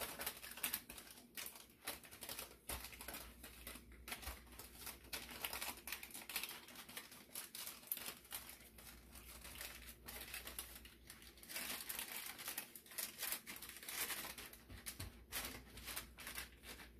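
Parchment paper crinkling and rustling under hands pressing and stretching pizza dough flat on it, with soft, irregular scrapes throughout.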